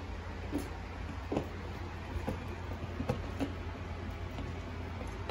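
Hand screwdriver turning a screw into a metal wall-mount bracket: faint, irregular clicks and ticks about once a second over a steady low hum.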